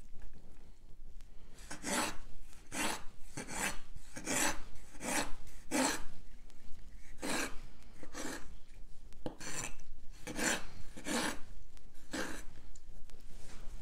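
Kitchen knife slicing soft jarred peppers into strips on a wooden cutting board: about a dozen short scraping strokes, roughly one a second, starting about two seconds in.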